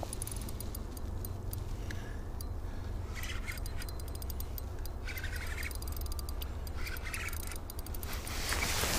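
Spinning reel on an ice rod being worked against a heavy fish, with fine irregular ticking over a steady low wind rumble on the microphone. Two short higher buzzes come about three and seven seconds in, and rustling grows louder near the end.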